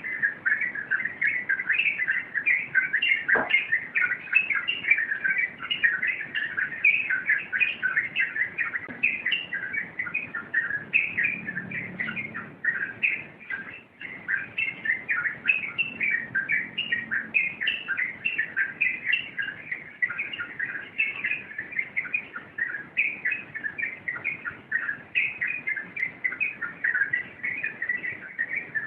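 Yellow-vented bulbul (trucuk) singing its 'rompelan': a continuous, rapid run of quick chattering, bubbling notes with no pauses.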